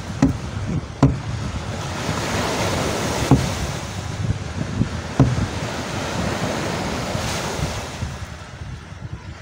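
Steady rush of surf and wind, with wind buffeting the microphone. Four sharp knocks stand out, and the rush eases a little near the end.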